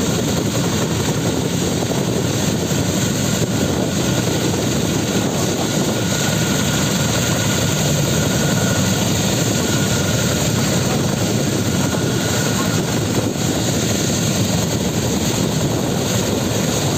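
Boeing Vertol 234 Chinook tandem-rotor helicopter running on the ground, its turbines and both rotors turning at a steady pace, with a faint high turbine whine over the rotor noise.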